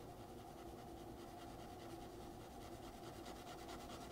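Faint pencil strokes on drawing paper, a graphite pencil shading in quick repeated strokes, over a steady low hum.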